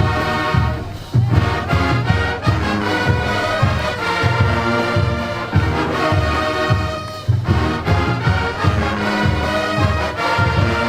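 College marching band playing: brass with a steady drum beat, with two short breaks in the phrase, about one second in and again past the middle.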